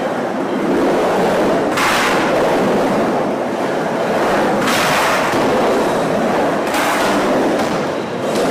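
Skateboard wheels rolling and carving through an indoor bowl, a continuous rumble with three brief hissier surges as the board runs up and turns on the walls.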